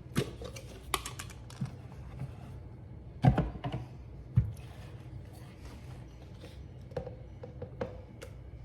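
Scattered clicks and knocks of kitchen things being handled and set down on a counter, with two louder knocks about three and four seconds in.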